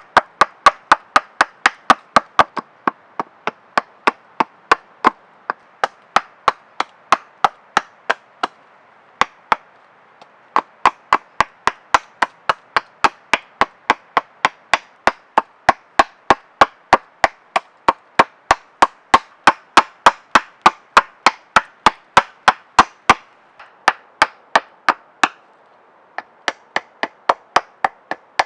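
Rapid, even chopping strikes into hardwood, about three a second, with two short pauses: a blade cutting into wood by hand.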